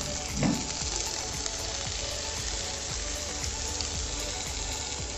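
Pieces of potato and pointed gourd sizzling steadily as they fry in oil in a pan with tomato and green chilli. There is a short thump about half a second in.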